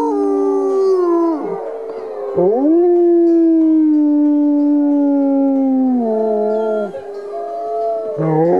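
Several wolves howling together in chorus: long held notes at different pitches that slide down at their ends. One voice breaks off about a second and a half in, a new howl swoops up and holds about two and a half seconds in, and another rises near the end.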